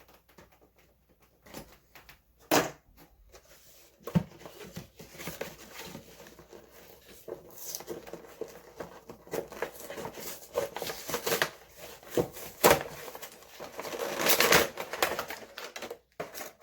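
Action-figure packaging being handled and opened: plastic and cardboard crinkling, rustling and tearing. A few scattered clicks come first, then almost continuous rustling with louder crackling bursts near the end.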